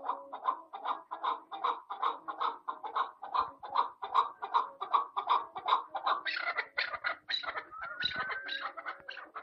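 Chukar partridge calling: a fast run of short clucking chuk notes, about four a second, that grows louder and sharper about six seconds in.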